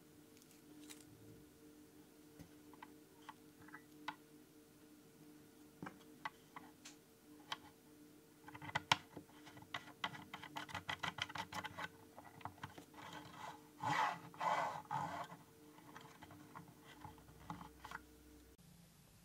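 Small plastic parts being handled as a clear plastic blade guard is fitted to the plastic top of a 3D-printed mini table saw: light clicks and taps, a quick run of clicks about ten seconds in, then a brief stretch of scraping.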